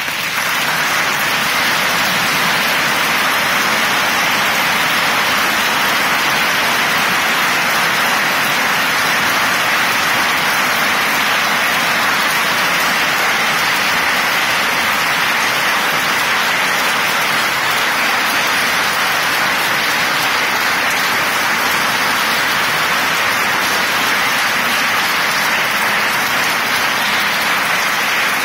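A large audience applauding: a dense, even clatter of many hands clapping that starts suddenly and holds steady for nearly half a minute.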